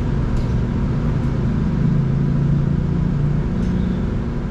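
Ride noise inside an Irizar ie tram battery-electric bus on the move: steady road rumble with a low hum that grows stronger from about two to three and a half seconds in.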